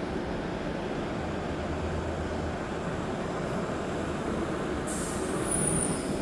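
Hidromek 102S backhoe loader's diesel engine running steadily, with a brief high whistle near the end.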